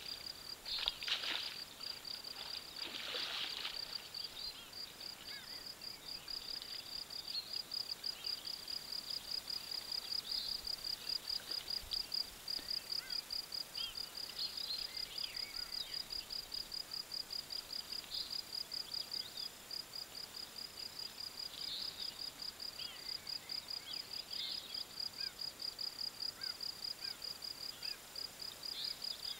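A chirping insect, cricket-like, keeps up a steady high chirp repeated evenly about three times a second, with faint scattered bird chirps. Two short noisy rustles come in the first few seconds.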